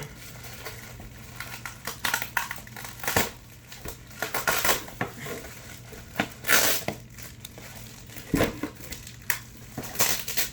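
Packaging crinkling and rustling in irregular bursts as taped-down parts are worked free from a toy set's box.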